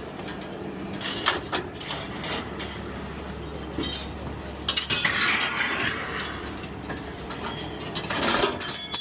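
Pieces of scrap metal clanking and clattering as they are tossed off a truck onto a scrap pile, a series of separate metal knocks and crashes over a steady low engine hum.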